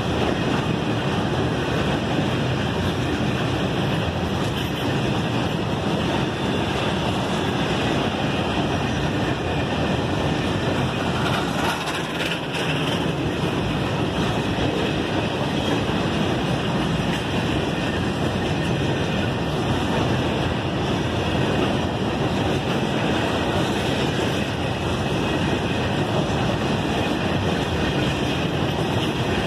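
Loaded BOXN open freight wagons rolling past close by: a steady, continuous noise of steel wheels running on the rails.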